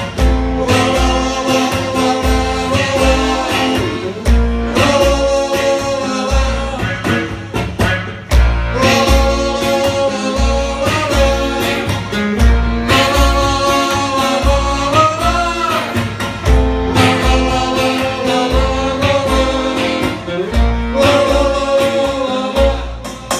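Music: a song with singing over plucked guitar and a steady bass beat.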